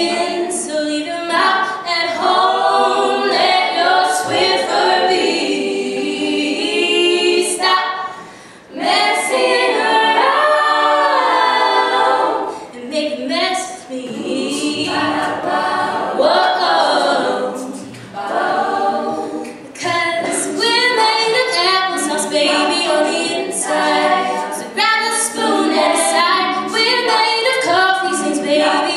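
All-female a cappella group singing: a lead voice over the other singers' backing harmonies, with no instruments.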